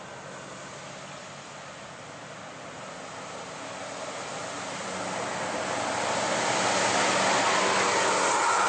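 Road traffic on a steep climb: a heavy diesel truck engine labouring with a steady low note, under tyre and engine noise that swells over the second half as motorcycles and a dump truck pass close by.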